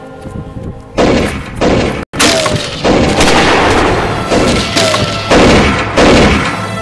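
Gunshot sound effects, a run of about eight shots in quick, uneven succession starting about a second in.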